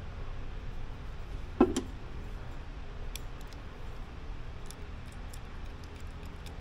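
Small parts of a fuel pressure regulator being handled on a bench: a few light clicks and one sharp clack about a second and a half in, over a steady low hum.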